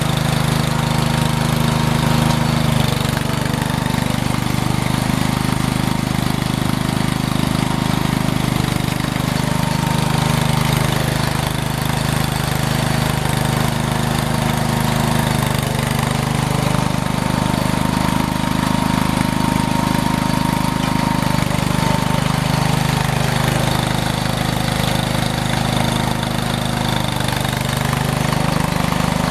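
Engine of a snow-clearing machine running steadily, its pitch shifting slightly a few times as the load changes.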